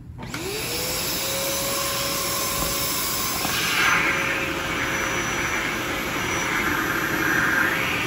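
Upright vacuum cleaner, a yellow Dyson, switching on: its motor whine rises within half a second to a steady pitch, then runs loud and steady. About halfway through the sound grows louder and rougher.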